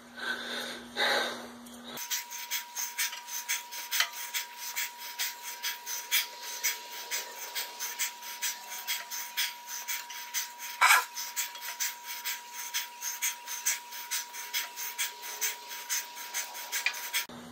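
A man breathing hard in a quick, regular rhythm, about three breaths a second, from the effort of cranking a threaded sleeve puller on a Ford 8N engine block. One sharper, louder sound stands out about eleven seconds in.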